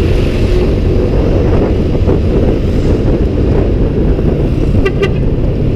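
Steady wind rush on the microphone of a camera riding on a moving scooter, with the scooter's engine and road noise underneath. A brief pitched sound comes near the end.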